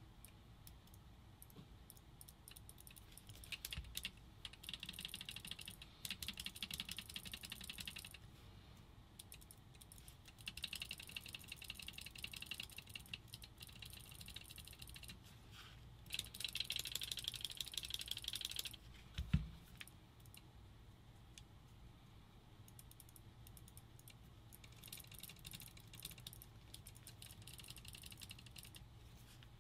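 Bursts of rapid small clicking and rattling as the trigger and small parts of a WDP Angel paintball marker are worked during a trigger-travel adjustment, with one short thump about two thirds of the way through.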